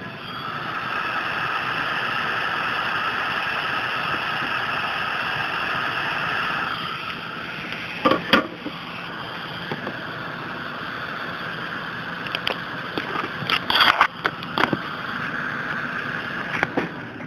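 858A hot air rework station blowing steadily while a surface-mount part is held in tweezers on the board; the air noise drops about seven seconds in. Sharp clicks and knocks from handling the board and tweezers come a little after that and again near the end.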